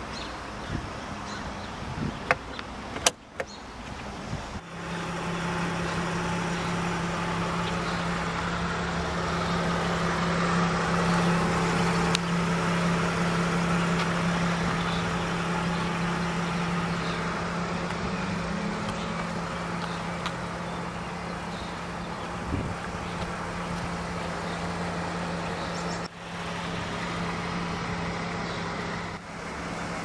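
A few sharp clicks and knocks about two to three seconds in as the front service-access lid over the fluid reservoirs is handled. After that a steady machine hum with one low, even drone runs on, dipping briefly twice near the end.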